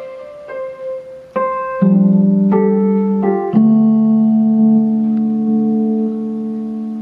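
Electronic keyboard being played: a few notes and chords struck in quick succession, then a deeper chord struck about halfway through that is held and slowly fades.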